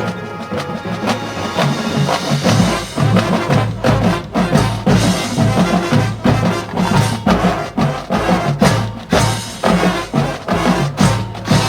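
Marching band playing, with horns over a drumline. The texture is lighter at first, then about two and a half seconds in the full ensemble comes in, with heavy low drum hits on a steady beat.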